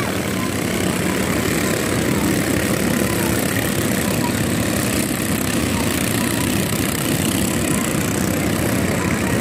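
Many small Robin-engined racing sampans (motor canoes) running flat out together, their engines blending into one steady drone.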